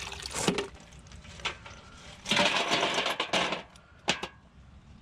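Rainwater dumped out of a bucket in a splashing rush lasting over a second, about two seconds in, with a few clinks and knocks before and after it.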